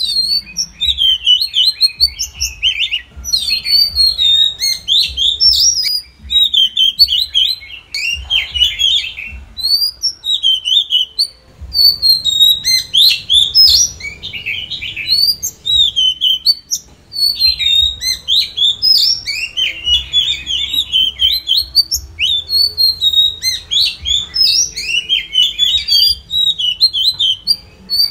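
Oriental magpie-robin singing a long, varied song of rapid whistled and chirping notes, delivered in fast phrases with a few short breaks.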